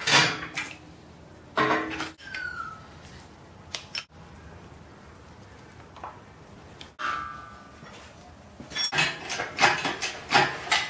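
Metal parts and tools clanking as they are handled during engine work: a few separate knocks, some with a short metallic ring, then a quicker run of clatter near the end.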